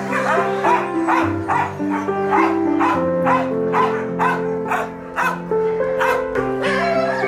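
Background music with held chords, over which a dog barks in short high yips, about two a second, stopping shortly before the end.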